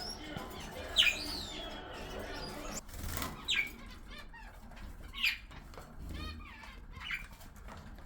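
Parrots in a mixed aviary giving short, sharp shrieking calls about four times, with wings flapping and a quick burst of rapid chatter between calls.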